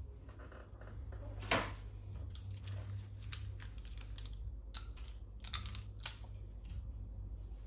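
Hands sectioning hair and handling hair clips: a scattering of irregular clicks and rustles, the loudest about one and a half seconds in, over a steady low hum.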